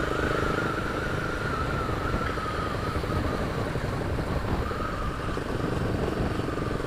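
Honda CB 300 single-cylinder engine running steadily, with a thin, slightly wavering high whine over it. The owner says the fuel pump sometimes keeps buzzing like this after starting, as if stuck on.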